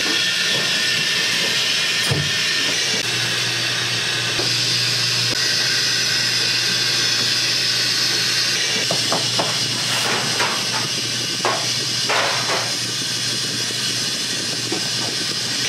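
Steady hiss of steam from dumpling steamers, with a low hum through the first half and a few light knocks and clatters in the second half.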